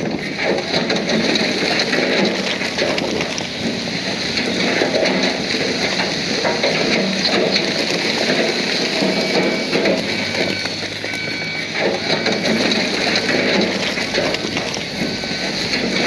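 Crawler bulldozer at work: its engine runs steadily under a dense, gritty crackle of tracks and pushed stone and dirt, with short high squeaks now and then.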